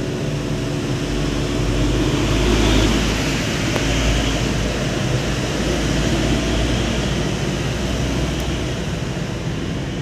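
A steady low rumble with a hiss above it, swelling a couple of seconds in and easing back after about eight seconds.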